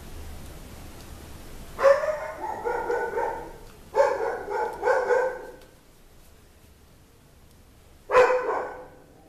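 A dog barking: a run of barks about two seconds in, another run about four seconds in, and a single bark near the end.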